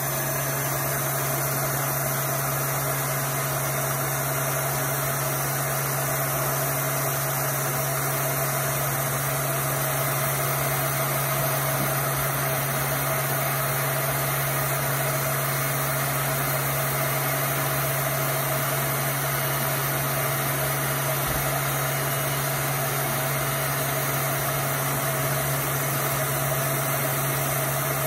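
An electric heat gun blowing steadily, shrinking heat-shrink tubing onto a freshly crimped battery cable lug. It is an even rush of air with a low motor hum underneath.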